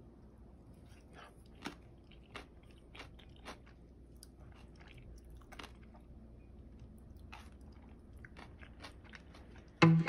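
Faint close-up eating sounds: chewing of spicy cold noodles (bibim-guksu) with scattered small clicks as wooden chopsticks work the noodles in a paper cup. Guitar music comes in just before the end.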